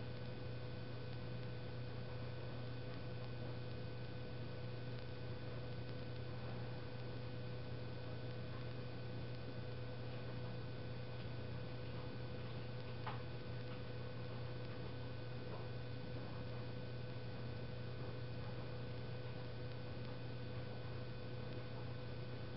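Steady low electrical hum with a few fainter high steady tones over it. A handful of faint ticks now and then, the plainest about halfway through.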